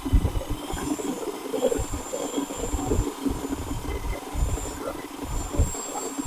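Electric drill turning a paddle through a bucket of fresh black walnuts, the nuts tumbling and knocking against each other to break off their husks. The drill's thin high whine comes and goes over irregular knocking and rumbling.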